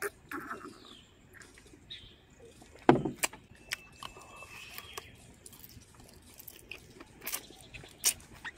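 Scattered clicks and knocks from something being handled, with one louder thump about three seconds in and a few sharp ticks later on.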